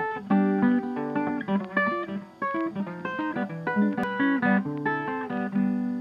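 Background music: plucked guitar notes in a quick melody, settling into a held chord that fades near the end.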